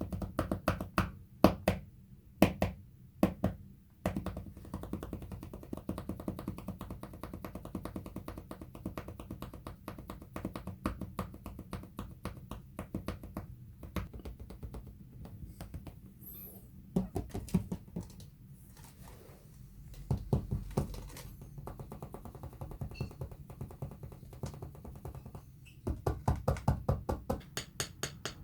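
Fingers tapping and drumming rapidly on a floor, quick light taps with a few louder knocks early on and a louder flurry near the end.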